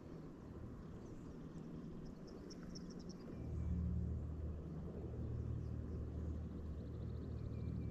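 Low, steady drone of a distant engine, growing louder about three seconds in.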